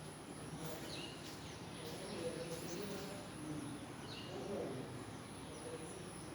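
Outdoor ambience: a few short bird chirps over a steady background hiss with a constant high-pitched whine, and faint distant voices.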